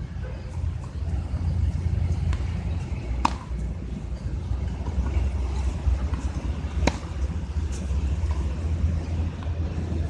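Tennis ball struck by a racket and bouncing on a hard court, a few sharp pops a few seconds apart, the loudest about three and seven seconds in, over a steady low rumble of wind on the microphone.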